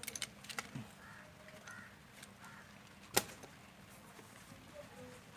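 Small metal tools and parts clicking and tapping on a repair bench, a few light ticks near the start and one sharper click about three seconds in.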